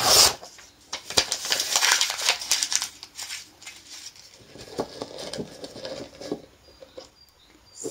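Sheets of coloured paper crinkling as they are crumpled by hand and pushed into a glass jar, in irregular bursts. Loudest at the very start, busy over the first few seconds, then a quieter patch of crinkling and little near the end.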